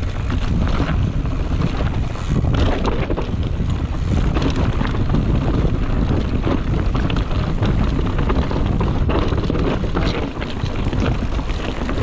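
Mountain bike ridden fast down rocky dirt singletrack: wind buffeting the camera microphone, tyres rolling over dirt and rock, and scattered clicks and knocks of the bike rattling over rocks.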